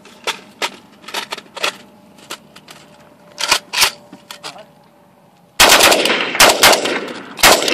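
Scattered sharp clicks and knocks of the rifle being handled, then, about five and a half seconds in, a Zastava PAP M70 AK-pattern rifle in 7.62×39 mm firing several loud shots in quick succession, each ringing out with a long echo.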